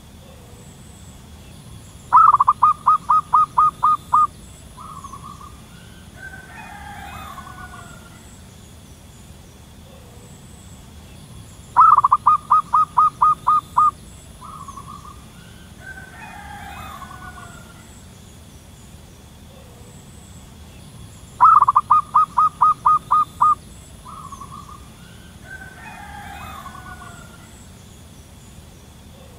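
Zebra dove calling: three bouts of rapid staccato cooing, each a quick run of about eight or nine short notes lasting about two seconds and ending in a single shorter note. A fainter call from another bird sounds between the bouts.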